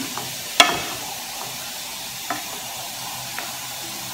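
Beef-broth sauce sizzling in a stainless steel sauté pan while a wooden spatula stirs it, with the spatula knocking sharply against the pan about half a second in and lightly twice more later.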